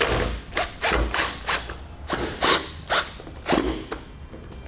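Cordless drill with a Phillips bit driving the mounting screws of a cab marker light into the truck's sheet-metal roof, in a run of short, uneven bursts.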